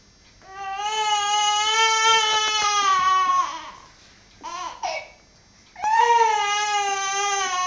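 Young baby crying in two long wails, each a few seconds long and dropping in pitch at the end, with short broken cries between them.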